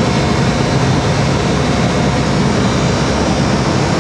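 Master-Bilt freezer condensing unit running during hot gas defrost: a steady, loud rush and hum of the compressor and fan with a few faint steady tones over it.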